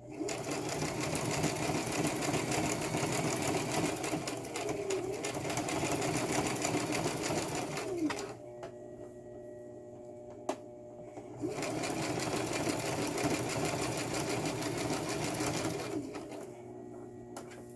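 Sewing machine stitching through doubled hair weft tracks, running in two spells: about eight seconds, a pause of about three seconds with a single click, then about four more seconds before stopping near the end.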